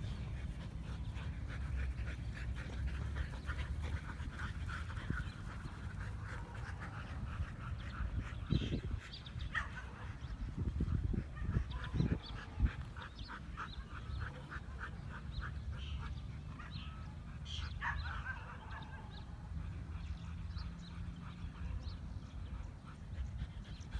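Siberian huskies making short yips and whines, in runs of quick repeated calls with a few sharper rising ones, over a steady low rumble. Several dull thumps come in the middle.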